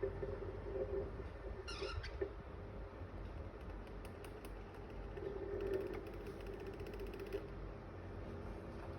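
Electric fan running with a steady hum, with a brief falling squeak about two seconds in and faint ticking later.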